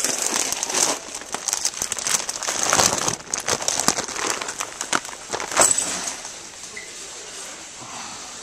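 Rustling and crackling handling noise close on the phone's microphone, dense with small clicks, as the phone is moved about over a wire shopping cart; heavy for the first six seconds or so, then easing to a quieter hiss.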